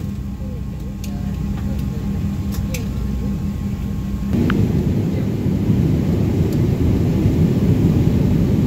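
Jet airliner cabin noise during taxi: a steady engine hum with a faint whine. About four seconds in it turns louder and rougher as the engine noise rises.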